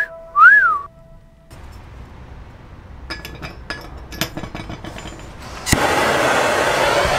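A short rising-then-falling whistle, then a few light clinks as a silver bar is set into a ceramic melting dish. About six seconds in, a gas torch lights with a sharp pop and runs with a loud, steady rushing hiss.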